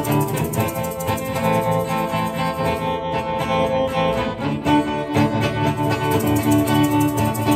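Acoustic band playing an instrumental passage: a strummed acoustic guitar with a fiddle playing held melody notes over it.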